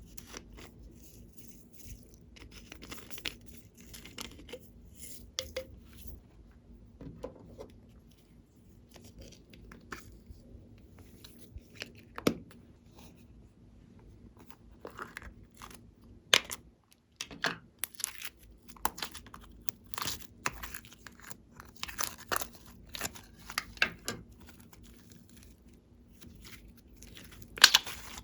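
Hands kneading and stretching glossy slime, giving irregular sharp crackles and pops that come thicker and louder in the second half.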